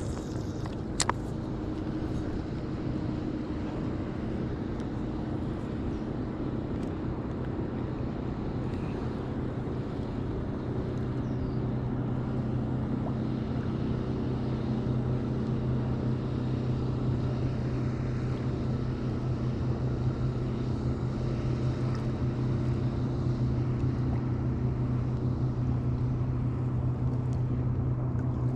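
Boat motor running steadily with a low, even hum, as the boat moves to a new spot. A single sharp click sounds about a second in.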